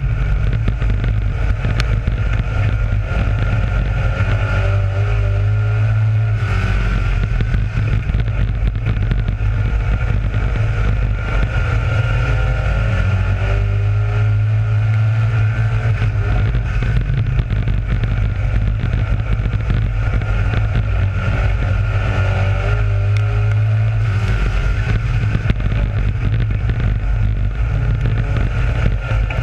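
Dirt-track race car engine running hard at racing speed, heard from inside the cockpit. Its note swells and eases in repeating stretches of a few seconds as the throttle opens and lifts lap after lap.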